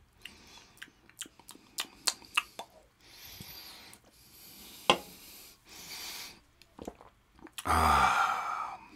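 Small clicks of an aluminium beer can being handled, then sipping and swallowing from the can with breaths through the nose. Near the end comes a loud wordless vocal sound from the drinker, about a second long.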